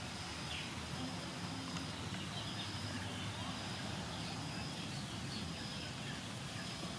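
Outdoor ambience: small birds chirping over a steady low rumble, with a short high note repeating about once a second.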